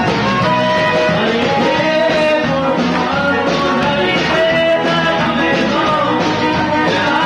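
Live band playing loud, steady music with guitar and a singing voice.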